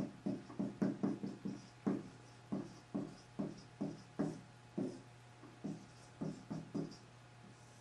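Dry-erase marker writing on a whiteboard: irregular short strokes and taps, a few a second, broken by brief pauses. A faint steady low hum runs underneath.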